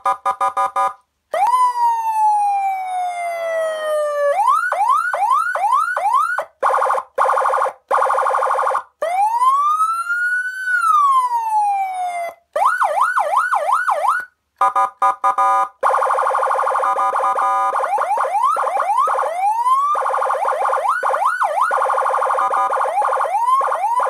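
30-watt electronic police siren played through a 10-watt TOA horn speaker, switched between tones by push-buttons: a long falling wail, fast repeated yelps, a slow rise-and-fall wail and a buzzing horn tone. Each tone stops abruptly as the next button is pressed, leaving short gaps.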